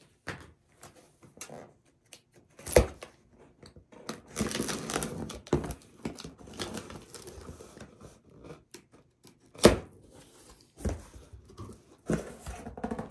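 Cardboard packaging being opened by hand: tape or cardboard tearing and packing rustling, with scattered scrapes and two sharp knocks.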